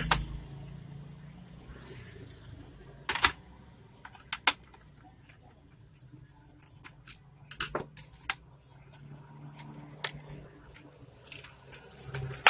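Scattered sharp clicks and knocks of a small screwdriver and hands on an Acer Aspire 4752 laptop's plastic casing and metal frame as screws are undone and the case is handled, over a faint low hum.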